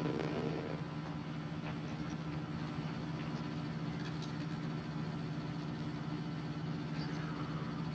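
Steady low mechanical hum made of several held low tones, with a few faint ticks over it.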